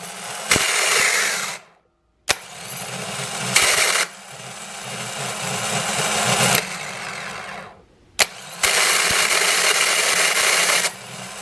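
Original Denso starter motor of a 2010 Toyota Corolla switched on three times: each run opens with a sharp click and grinds for one to four seconds before cutting off. The grinding is a cold-weather fault of this starter that stops once it warms up.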